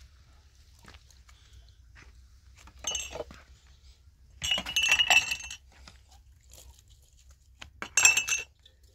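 Hard objects clinking together with a ringing tone: one short clink about three seconds in, a longer run of clinks around the middle, and another short burst near the end.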